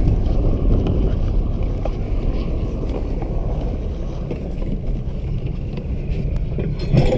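Steady low rumble of wind on the microphone aboard a boat under way, with water noise beneath.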